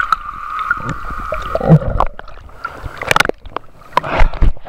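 Water heard through a waterproof camera's microphone underwater: a steady muffled hum, then splashing and sloshing as the camera comes up through the lake surface about a second and a half in, with more splashes a little past three seconds and near the end.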